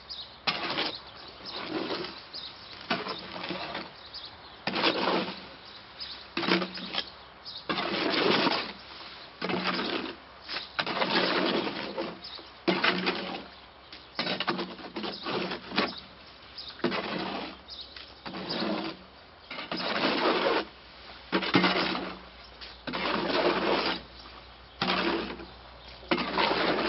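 Shovel mixing concrete in a wheelbarrow: a long run of separate scraping strokes, roughly one a second, as the blade is pushed and dragged through the mix.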